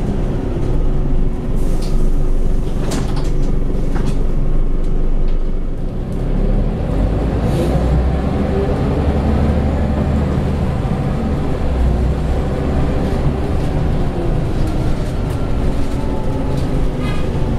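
Inside a Scania L94UB Wright Solar single-deck bus on the move: the rear-mounted diesel engine running under a steady low rumble. The rumble grows heavier from about six to twelve seconds in. A few sharp knocks and rattles come about two to four seconds in.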